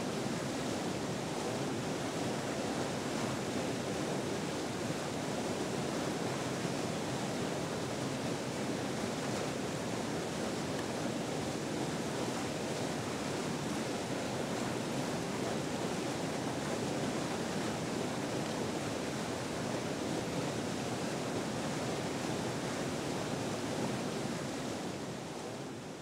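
Rushing whitewater of river rapids: a steady, even rush of water with no breaks.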